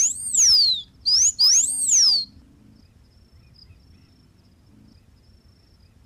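Blue finch (Porphyrospiza caerulescens) singing: two high, thin phrases, each a short note followed by a whistle that rises and then slides down, the second about a second after the first.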